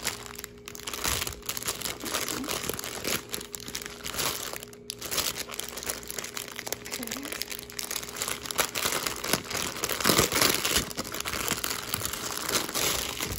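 Thin clear plastic packaging bag crinkling and crackling continuously as it is handled and pulled open, loudest about three quarters of the way through.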